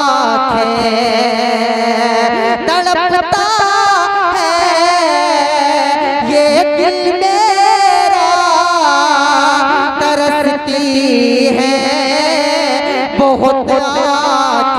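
A man singing a naat into a microphone, holding a long wordless melodic run with a wavering vibrato, the pitch winding slowly up through the middle and falling back near the end.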